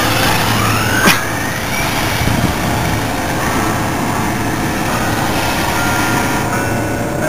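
Brushless electric motor of a Jammin X1-CRT RC truggy whining and rising in pitch as the truck accelerates away on a full-throttle speed pass, the whine fading after about two seconds. There is a steady rushing noise throughout, and a sharp click about a second in.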